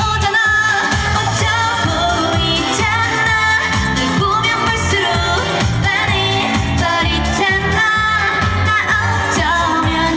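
A trot song performed live over an amplified backing track with a steady beat, a woman singing the melody with wavering, sliding notes.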